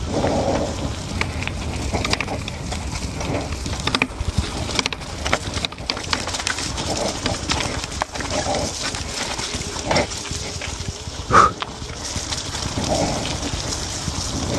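DUOTTS C29 electric mountain bike riding over a rough forest dirt track: steady tyre and wind noise with scattered small rattling clicks from the bike, and one brief louder sound about eleven seconds in.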